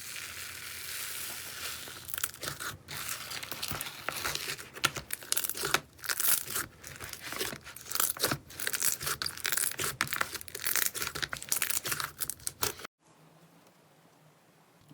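Slime being squished and worked, with dense, irregular crackling and popping. The sound cuts off suddenly near the end, leaving a faint low hum.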